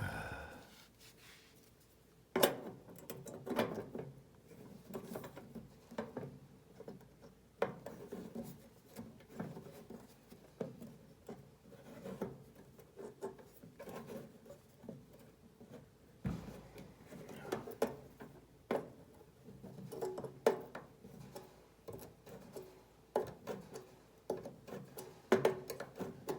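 Irregular clicks, knocks and short scrapes of small metal parts and a hand tool: screws being fitted and tightened on a space heater's metal housing, with a faint metallic ring.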